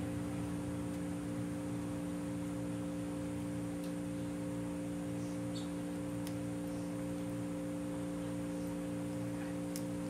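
A steady low hum made of several held tones, with a few faint light clicks about four and six seconds in and near the end.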